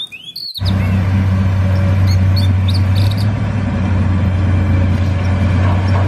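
Komatsu PC200 hydraulic excavator's diesel engine running steadily with a deep, even hum, cutting in about half a second in. Birds chirp briefly over it midway.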